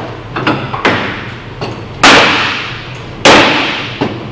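Two heavy hammer blows about a second apart drive a hot, steam-bent white oak frame down into a wooden boat's hull. Each blow rings briefly, and a few lighter knocks come before them.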